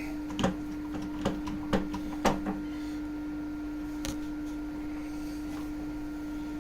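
Sharp metallic clinks and knocks as a stainless steel rod is refitted in a lathe chuck and the chuck is tightened: about five in the first two and a half seconds and one more near four seconds in, over a steady low hum.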